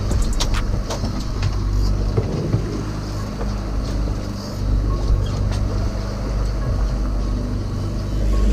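Outboard motors of a fishing boat running steadily, a low, even engine hum, with a few sharp clicks in the first second or so.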